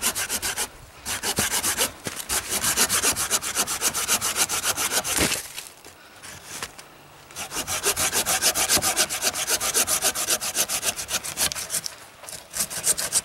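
Hand saw cutting through a beech pole in quick, even back-and-forth strokes. The sawing comes in runs, with short breaks about one and two seconds in and a longer break midway.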